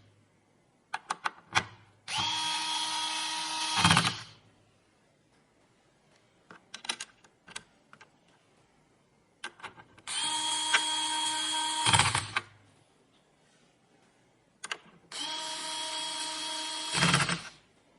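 Small electric screwdriver driving screws in three steady whirring runs of about two seconds each, each ending in a brief louder burst as the screw seats. Light clicks of small parts being handled come in between.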